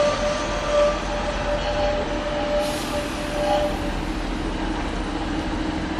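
Narrow-gauge diesel locomotive approaching slowly with its train, its engine hum growing stronger in the second half. A thin steady squeal from the wheels runs through the first few seconds, with a brief hiss about halfway.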